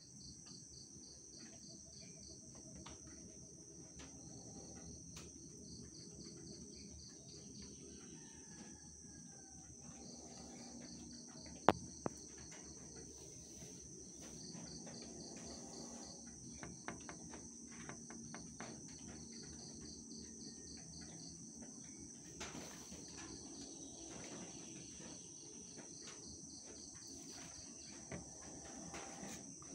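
Insects trilling continuously: a steady high-pitched buzz with a rapid pulsing chirp just beneath it. A sharp click about twelve seconds in, followed by a fainter one, stands out above it.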